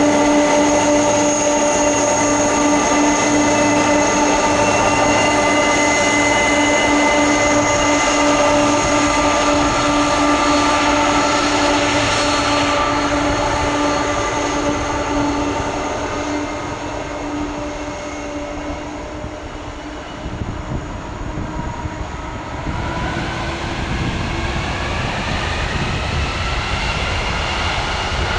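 Boeing 747-400F jet engines running with a steady whine that fades for a while, then from about three quarters of the way through a rising whine as the engines spool up.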